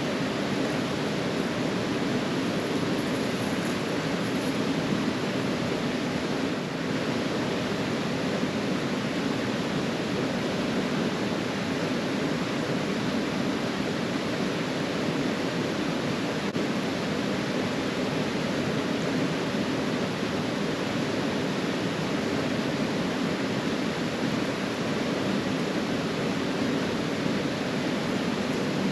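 Steady rushing of a mountain trout stream, an even wash of water noise that holds the same level throughout.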